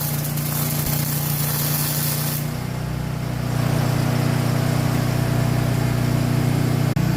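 An engine runs steadily with a low hum throughout. Over it a hissing spray runs and stops suddenly about two and a half seconds in.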